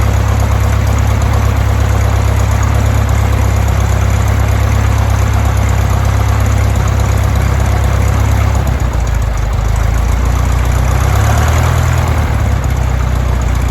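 Lycoming O-320 four-cylinder, air-cooled aircraft engine running steadily at low speed on its first start. Its low note changes slightly about nine seconds in.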